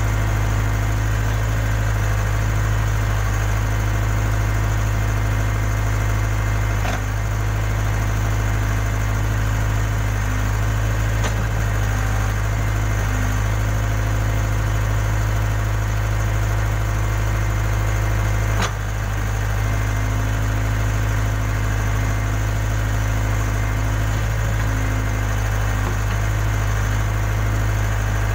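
Case 580K backhoe loader's diesel engine running steadily, with two sharp knocks, one about a quarter of the way in and one about two-thirds of the way through.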